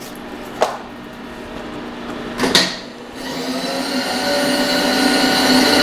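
Two sharp clicks, then an electric motor spins up a little past halfway, its whine rising quickly in pitch and settling into a steady, louder run.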